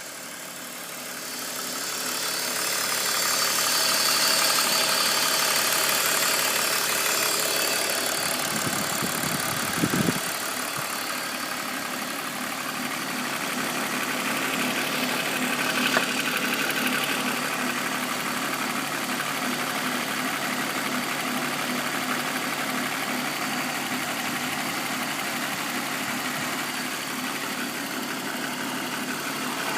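BMW M54B25 2.5-litre straight-six idling warm, with a knock from the front right of the engine. The owner has ruled out the VANOS and suspects the timing chain.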